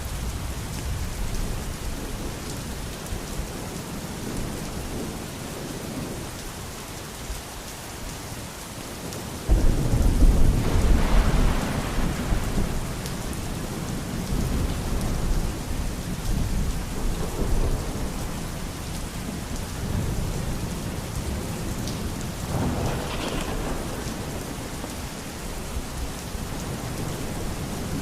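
Steady rain falling, with thunder: a loud rumble breaks in about a third of the way through and rolls on for several seconds, and a second, weaker peal comes later.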